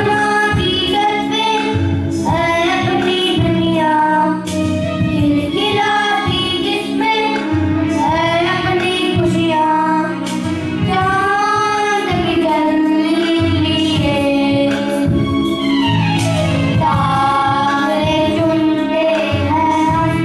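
Two boys singing a song together into microphones, over an instrumental accompaniment with a steady low bass pattern.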